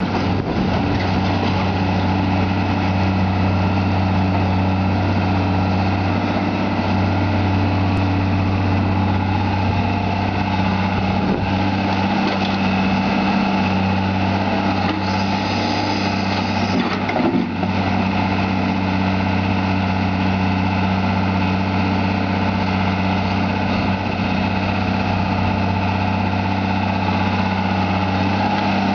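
Tata Hitachi EX110 hydraulic excavator's diesel engine running steadily under working load as it digs and swings, a constant low engine hum with a brief dip partway through.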